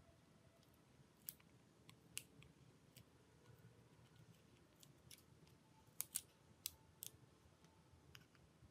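Scattered sharp clicks and snaps of small tools and plastic parts being handled during phone disassembly work, a few at a time with the loudest cluster about six seconds in.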